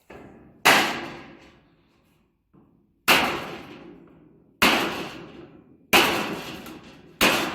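Five hammer blows on thin sheet steel backed by a steel right-angle block, bending the sheet over it; each strike rings out and fades over about a second.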